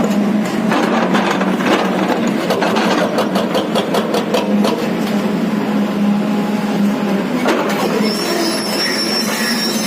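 JCB JS215 tracked excavator's diesel engine running steadily while digging, with frequent clicks and knocks from the machine and bucket working the ground.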